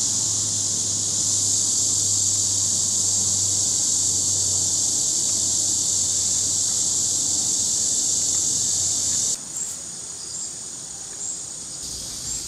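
Cicada chorus: a loud, steady, high buzz that stops suddenly about nine seconds in, leaving a fainter insect buzz with a few short high chirps.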